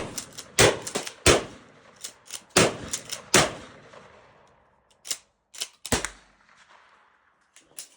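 Maverick 88 pump-action shotgun fired four times in quick succession, with the pump action clacking between shots. A few sharp clicks of the action follow about five to six seconds in. The gun is feeding and cycling a mixed load of birdshot and buckshot shells.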